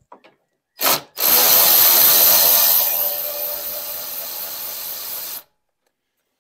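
Cordless 3/8-inch brushless impact wrench (Hercules 20V) backing out a 10 mm bolt: a short burst about a second in, then about four seconds of running, louder in the first half and quieter after, stopping suddenly.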